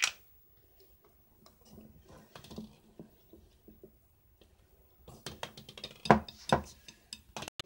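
Wire whisk beating thick cake batter in a glass bowl, its wires scraping and clicking against the glass. Faint at first, with louder, quicker knocks in the last few seconds.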